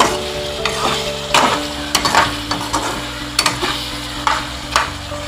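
Pieces of meat frying and sizzling in a metal pan while a spatula stirs them, scraping and knocking against the pan about seven times.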